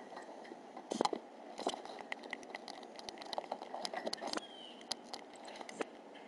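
Pygmy marmosets' hands and claws tapping and scrabbling on a hollow plastic treat station close to the microphone: a quick, irregular run of small clicks and knocks, with a louder knock about a second in. A brief high chirp comes just past the middle.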